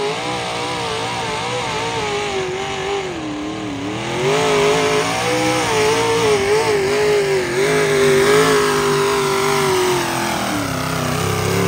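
Pulling vehicle's engine running at high revs under load during a pull, its pitch wavering up and down, growing louder about four seconds in.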